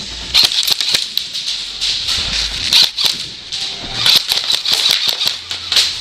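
Airsoft guns firing in irregular bursts of sharp snapping clicks, with BBs striking around the room.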